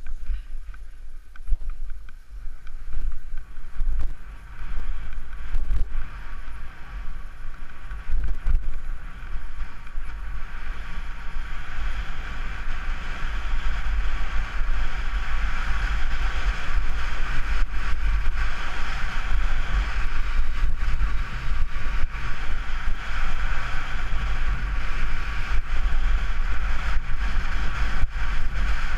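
Wind buffeting a GoPro's microphone, with skis hissing over packed snow on a fast downhill run. The hiss grows louder from about twelve seconds in as speed builds.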